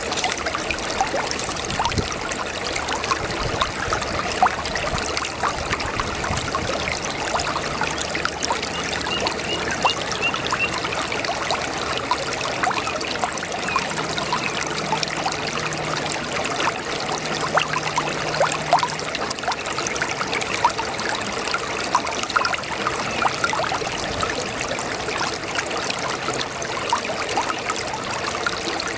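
Brook babbling: a steady trickle of running water with many small splashes and gurgles.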